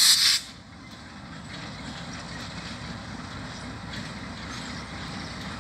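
Distant freight train hauled by two diesel locomotives: a steady low rumble that slowly grows louder as it approaches. A brief loud rush of noise opens the sound in the first half second.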